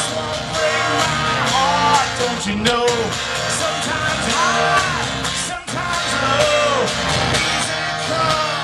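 Live rock band playing loudly, with electric guitar, drums and a melodic lead line that bends and wavers in pitch.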